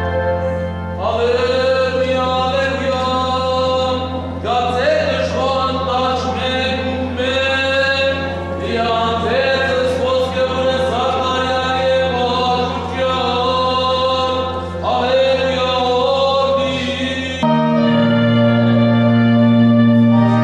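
Church hymn sung over a held organ drone. The singing stops about three seconds before the end, and the organ moves to a new sustained chord.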